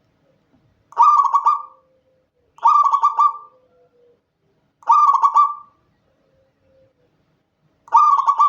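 Zebra dove cooing: four short phrases of quick rolling coo notes, each under a second long and spaced one to three seconds apart, the last one running on past the end.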